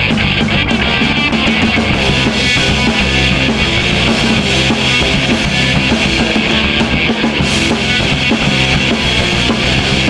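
Punk rock band playing live, an instrumental passage with the drum kit prominent and no vocals.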